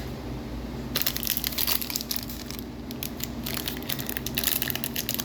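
Plastic parts bag crinkling and rustling as it is handled, in a dense run of irregular crackles starting about a second in.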